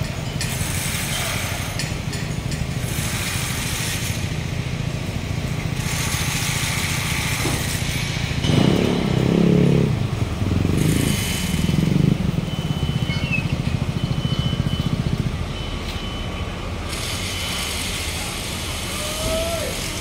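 Road traffic with a steady low engine hum. A louder vehicle engine passes close by from about halfway through, lasting some four seconds, then fades back into the traffic.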